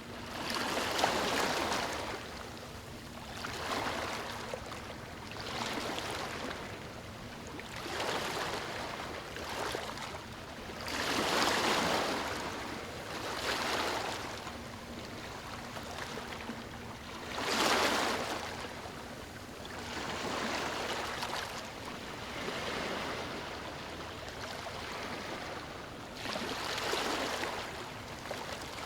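Small ocean waves washing onto a beach, the surf swelling and fading about every two seconds, with a few bigger breaks among them.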